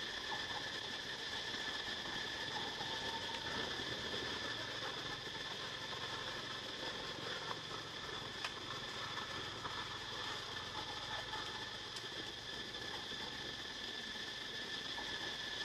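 Steady outdoor insect chorus, several high droning tones held level throughout, with a faint low hum underneath.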